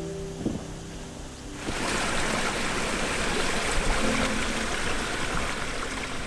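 Rushing water cuts in suddenly about a second and a half in and runs steadily, over faint background music.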